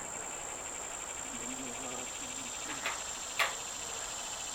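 Insects chirring steadily outdoors, crickets by their sound: one high continuous note with a fainter rapid pulsing trill beneath it. Two light clicks, about three seconds in and half a second later.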